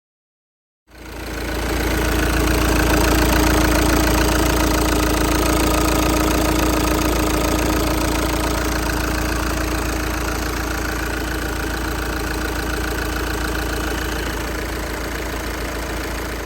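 Audi A5 2.0 TDI four-cylinder diesel engine running at a steady speed with a failed turbocharger. The sound starts suddenly about a second in and holds steady, with no revving.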